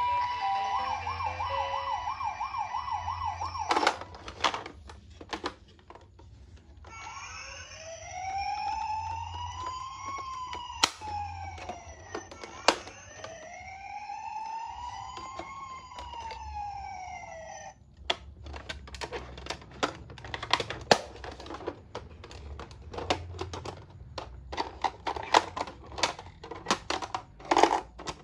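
Electronic toy ambulance siren: a fast warbling yelp for the first few seconds, then a slow wail that rises and falls twice and cuts off suddenly. The last ten seconds are dense clicking and rattling of small plastic toy cars being handled and rolled.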